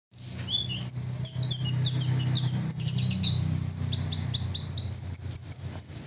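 Sikatan kerongkongan putih (SKP) flycatcher singing loud and fast: rapid high whistled notes and quick trills, then a run of repeated falling notes. A steady low hum lies under the song.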